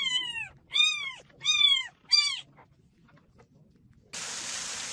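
Young kitten mewing four times in quick succession, each mew high and arched, rising then falling in pitch. Near the end a steady hiss of splashing water starts.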